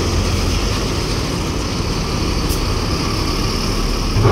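Mercedes-Benz OH1626 coach's rear-mounted diesel engine running with a steady low rumble as the bus drives slowly past onto a ferry's car deck, with a brief louder swell near the end.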